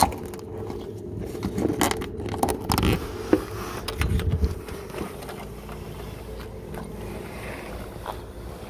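Handling noise: a series of clicks, taps and scrapes as the phone is moved against a window sill and frame, with a short low rumble about four seconds in.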